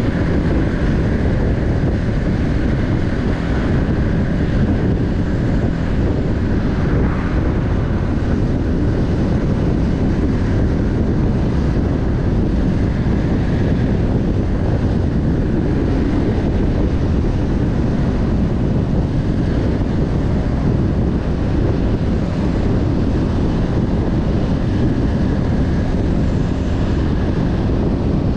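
Steady road noise of a car being driven: low engine and tyre rumble mixed with wind noise.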